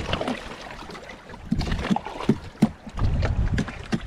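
A knife cracking and cutting into sea urchin shells: a run of sharp clicks and crunches that gets busier about halfway through, over a low wind rumble on the microphone near the end.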